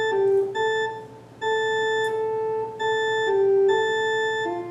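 Baldwin HT2 electronic organ playing a slow, single-note melody line in held notes that step between a few pitches, with a short break about a second in.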